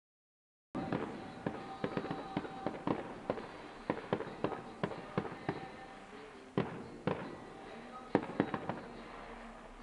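Distant fireworks display: a rapid, irregular series of bangs and crackles, several a second, starting after a moment of silence at the very beginning, with one louder bang near the end.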